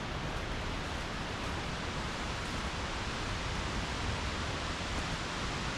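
Steady rushing of the stream's waterfalls below, heard as an even, unbroken hiss.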